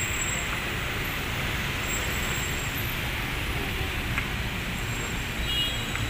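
Steady city road traffic noise: a continuous low rumble and hiss of passing cars.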